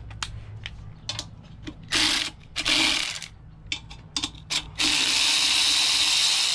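Ratchet wrench clicking as a 10 mm bolt is backed out: scattered single clicks, two short bursts of fast ratcheting about two and three seconds in, then a longer steady run of rapid ratcheting near the end.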